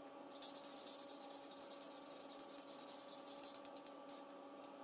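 Marker tip scribbling faintly on a paper card in quick, repeated strokes, colouring in small squares.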